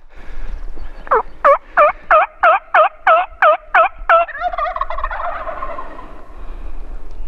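A run of about ten loud turkey yelps, roughly three a second, each note dipping and then rising in pitch. It trails off into a fainter, falling rattle.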